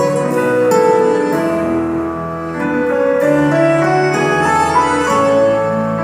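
Instrumental introduction of a folk song played live, a slow melody on piano or keyboard over held bass notes, with no singing yet.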